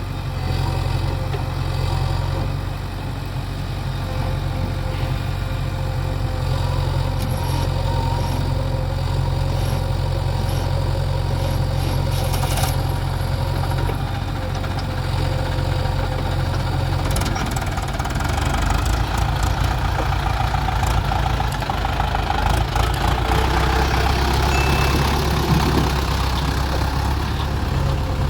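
Heavy diesel engine running steadily, its note shifting about two-thirds of the way through, with louder working noise near the end.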